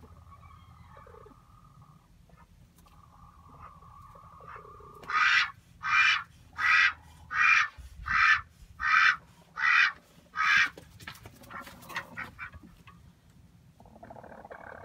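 A duck quacking: eight loud quacks in an even series, about one every three-quarters of a second, starting about five seconds in, followed by a few fainter calls.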